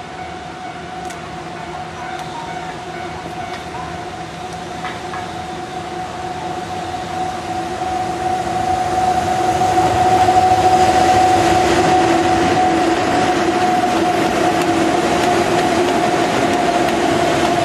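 A pair of JNR EF63 electric locomotives hauling a passenger train approaches and passes close by. A steady two-tone whine rides over the running noise, growing louder until the locomotives draw level about ten seconds in, then holding.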